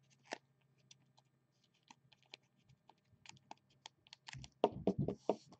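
Football trading cards being handled and set down on a table: a run of light clicks and taps that grows busier and louder near the end, with a few heavier knocks.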